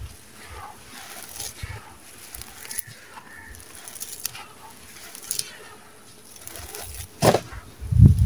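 Hands scooping and crumbling dry, gritty sand-cement mix, grains and small stones pouring and crackling as they fall. Near the end there is a louder crunch and then a heavy low thud as the hands push into the pile.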